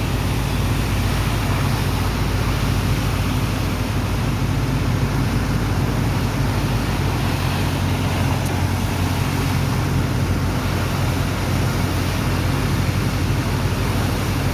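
Sand dredger's diesel engine and water pump running steadily: a constant low drone under an even rushing noise.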